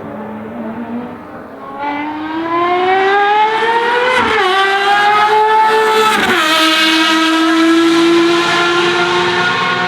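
Ferrari FXX Evoluzione's V12 accelerating hard. The note starts low and quieter, climbs, drops at two upshifts about four and six seconds in, then holds a high steady pitch, growing louder.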